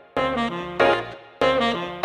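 Instrumental background music, jazz-style, with a horn lead playing three short phrases that each start sharply and fade.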